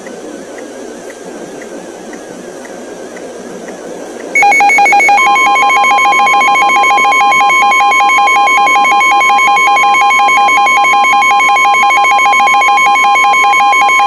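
Low static hiss, then about four seconds in an emergency alert attention signal starts abruptly and loudly: a rapidly warbling electronic tone, joined a moment later by a steady single-pitch tone, both held to the end.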